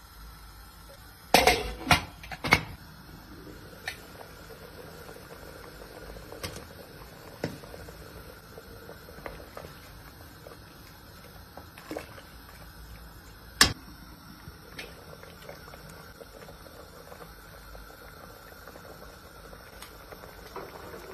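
Lentil soup simmering in a stainless steel pot while a spoon stirs it and knocks sharply against the pot: three loud knocks about a second in, another past the middle, and lighter taps between.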